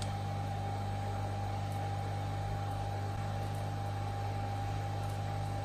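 Steady electrical mains hum with a constant high whine and a hiss over it, from the electronics workbench equipment.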